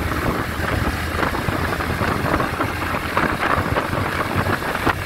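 Wind rushing and buffeting over the camera microphone on a moving Bajaj NS125 motorcycle, with its single-cylinder engine running steadily underneath.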